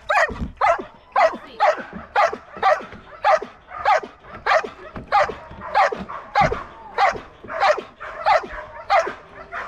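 A dog barking over and over in a steady rhythm, a little under two barks a second.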